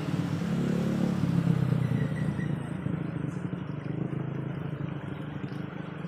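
A motor vehicle engine running with a steady low drone that swells for a moment about a second in and then eases off.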